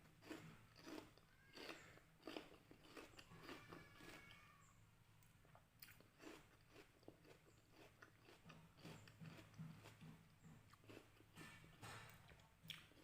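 Quiet chewing of crisp red water apple (jambu air): irregular wet crunches and mouth clicks as the juicy fruit is bitten and chewed.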